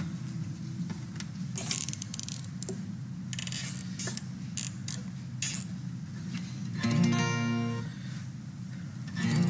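Acoustic guitar played softly: low notes ringing under scattered scratchy string and handling clicks, then a fuller strummed chord about seven seconds in and another near the end.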